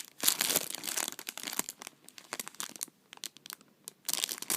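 Packaging of a mail sample crinkling and crackling as it is handled: a dense rustle for the first second and a half, sparser crackles, a short near-quiet pause, then crinkling again near the end.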